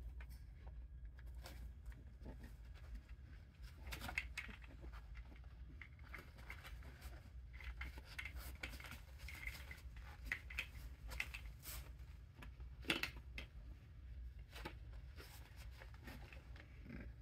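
Faint, irregular scratching and rustling of puppies' paws scrabbling on a paper puppy pad and plastic sheeting, with scattered light clicks over a steady low hum.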